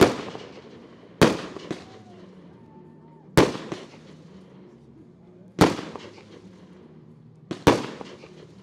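Aerial firework shells bursting, each a sharp bang with an echoing tail. There is one right at the start, two more a little over a second in, then a bang about every two seconds, with a quick double bang near the end.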